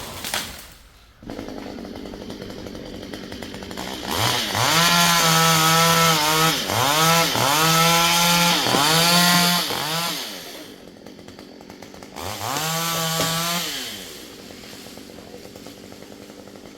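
Two-stroke chainsaw idling, then revved hard for several seconds with its pitch dipping briefly twice, dropping back to idle, revved once more and settling to idle near the end.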